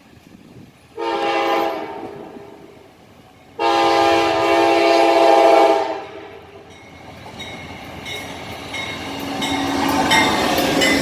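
Amtrak train's locomotive horn sounding a short blast and then a longer one as it approaches, followed by the train arriving with rising rail and wheel noise and clickety-clack.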